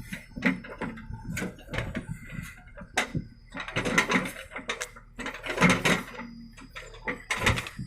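Irregular clattering and clinking: rapid sharp knocks that come in several bunches, the densest near the middle and near the end.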